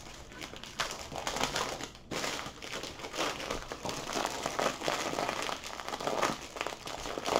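Clear plastic wrapping crinkling and rustling in irregular handfuls as it is worked loose from a rolled canvas.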